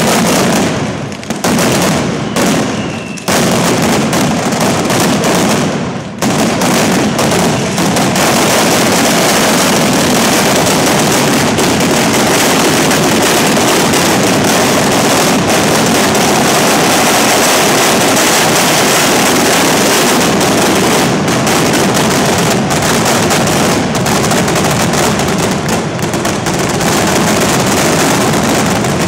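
A mascletà barrage of firecrackers exploding so fast the bangs merge into one continuous, very loud din. There are a few brief breaks in the first few seconds, and it is unbroken from about six seconds in.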